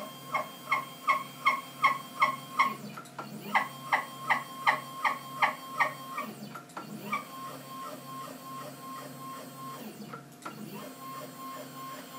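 Stepper motors driving the leadscrews of a homemade CNC router's Proxxon KT150 cross table through a sliding test: two runs of short, sharp whining moves, about three a second. From about seven seconds in come longer, steadier whines as the table travels further.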